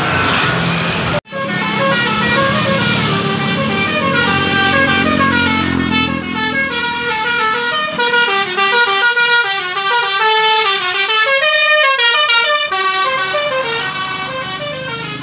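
A bus's Basuri telolet horn, a multi-tone musical horn, playing a quick tune of stepped notes. Before it, about a second of traffic noise ends in an abrupt cut.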